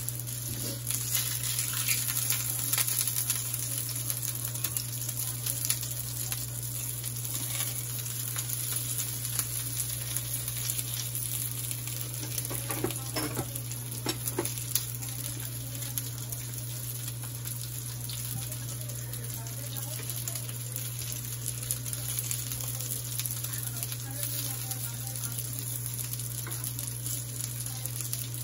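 Chicken kabab patties shallow-frying in oil in a frying pan, with a steady sizzle and crackle over a steady low hum. A few sharper scrapes and clicks come about halfway through as a spatula turns the patties.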